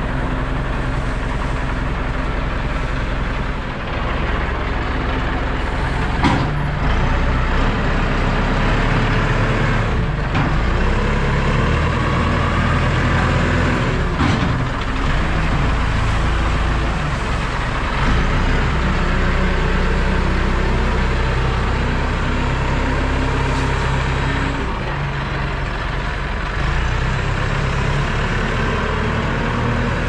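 Diesel engine of a Fermec loader running under work, its pitch stepping up and down as the loader handles corn-stalk bales, with a few brief knocks.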